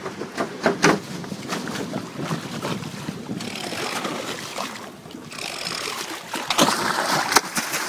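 Wind buffeting the microphone and water splashing around a fishing boat, with a few sharp knocks near the start and near the end.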